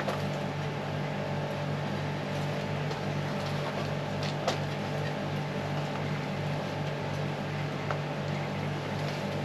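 Steady low mechanical hum over an even background noise, with a few faint short clicks, the clearest about halfway through.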